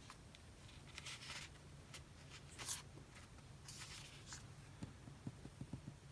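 Quiet rustling and sliding of paper sticker-book pages being handled, a few short brushes with the loudest about two and a half seconds in, then a run of light taps near the end.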